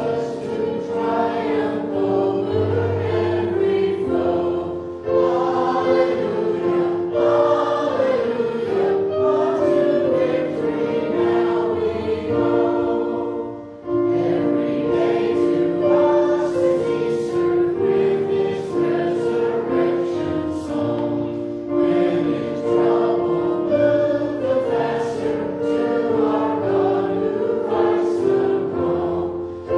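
A church congregation singing a hymn with instrumental accompaniment.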